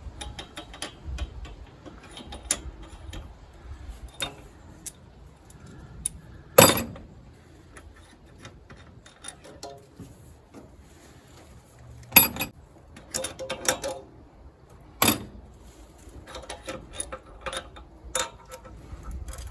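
Ratchet clicking as the cylinder head bolts are run out of a Ford 351 Windsor V8, with three loud metal clanks about a third of the way in, around the middle and a little later.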